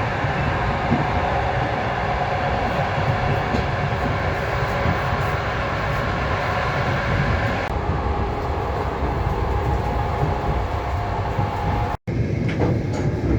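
Russian long-distance passenger train running, a steady rumble of wheels on rails heard from inside the carriage. The sound changes slightly about two thirds of the way in and cuts out for an instant near the end.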